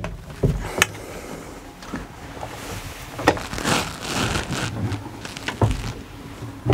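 A yacht's watertight engine-room door being unlatched and pushed open by hand: a few knocks and clicks from the latch and door, with a stretch of rustling noise in the middle as someone squeezes through.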